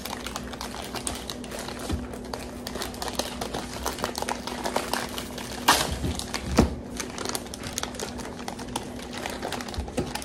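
Cardboard and plastic cookie-dough packaging being picked at, torn and crinkled open by hand: a steady run of small crackles and ticks, with two heavier knocks about six seconds in.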